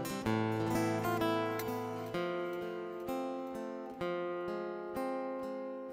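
Instrumental song intro on acoustic guitar: three strummed chords about two seconds apart, each left to ring and fade.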